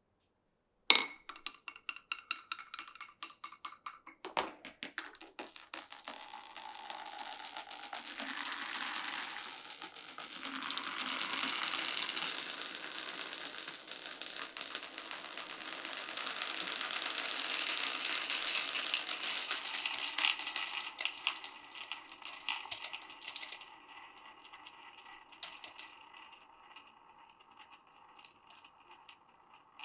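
Glass marbles running down a wooden marble run: a sharp click about a second in, then quick clacking, then a long continuous rolling rattle through the track that thins out to scattered clicks near the end.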